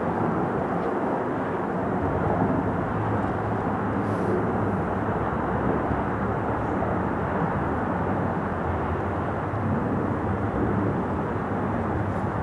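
Distant, steady roar of a Boeing 747-8 freighter's four GEnx turbofan engines at takeoff thrust as the jet lifts off and climbs.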